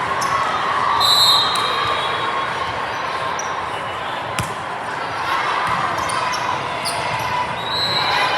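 Echoing gym din from a volleyball match: a murmuring crowd with a couple of short sneaker squeaks, and a single sharp ball smack a little past halfway.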